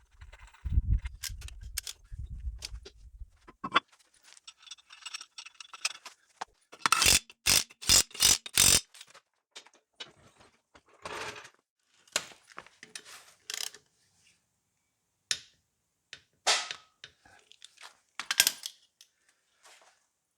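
Hand tools working on a car's drive-shaft retaining bolt: scattered metal clinks and scrapes as the bolt and socket are handled, with low handling thumps in the first few seconds. About seven seconds in come five quick, evenly spaced sharp strokes, like a socket ratchet being worked to tighten the bolt.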